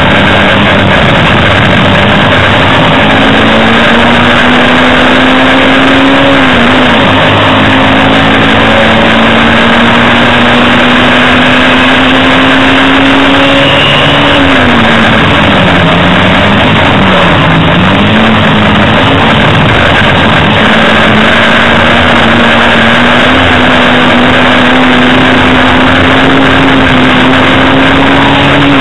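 Hillman Imp race car's rear-mounted four-cylinder engine running hard, loud from inside the cabin. The engine note climbs slowly, dips briefly about seven seconds in and twice between fifteen and eighteen seconds in, then climbs steadily again.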